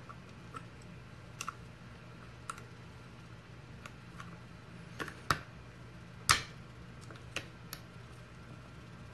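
Scattered sharp metal clicks and taps from a small tool working at the retaining clip on a Euro lock cylinder, the loudest a little after five seconds and about six seconds in, over a steady low hum.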